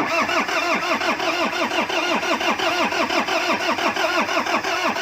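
Truck engine being cranked by its starter motor, a steady rhythm of cranking pulses about four to five a second, which stops after about five seconds without the engine catching: it will not start after repairs to its computer box (ECU).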